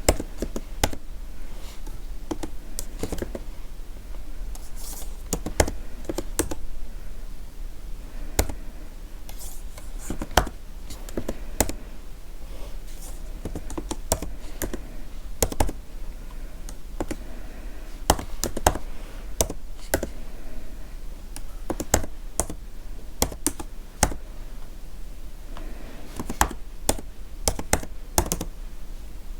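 Computer keyboard being typed on: irregular key clicks at a few per second, with some strokes louder than others.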